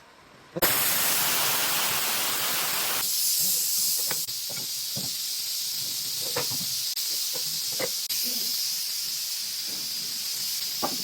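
A loud hiss of escaping pressure, starting suddenly about half a second in. After about three seconds it thins to a steadier, higher hiss, with a few faint knocks beneath it.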